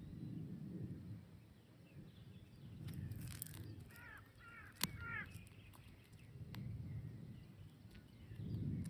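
Outdoor ambience with birds calling: two quick series of short, harsh calls about four and five seconds in. Under them is a low rumble that swells every couple of seconds, with one sharp click just before the five-second mark.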